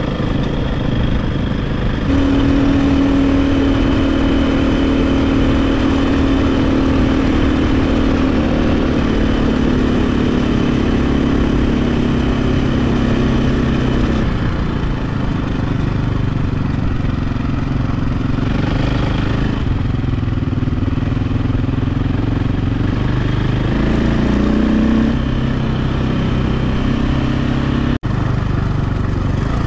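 KTM 520 four-stroke single-cylinder dirt bike engine running under way over a steady rushing noise. The engine holds a steady note for a long stretch, changes pitch about halfway through, and revs up and back down near the end. It cuts out for an instant shortly before the end.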